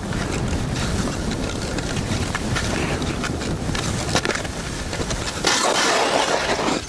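Wind buffeting the microphone during a ski run through a snowstorm, a steady low rumble. About five and a half seconds in, the rumble drops away and a louder hiss takes over to the end.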